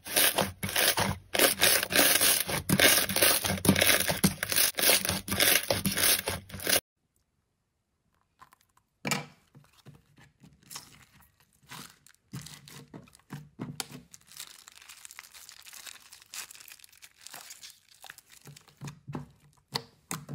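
Hands squeezing and pulling slime, with dense crackling and tearing for about the first seven seconds. It cuts off suddenly into a short silence. Softer, scattered crackles and squelches follow as slime is pressed inside a plastic bag and kneaded by hand.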